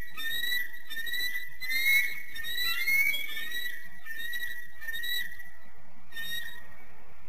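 Bald eagle calling: a long run of high, thin whistled chattering notes, about two or three a second, that stops near the end.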